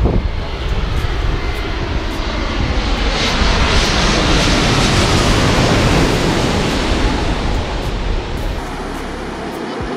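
Twin-engine jet airliner flying low overhead on final approach, its engine noise building to its loudest about halfway through and then easing off.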